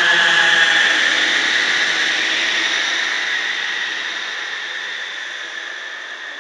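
Horror sound effect: a loud hissing, rushing noise with a faint pitched hum under it for the first second. It fades away slowly.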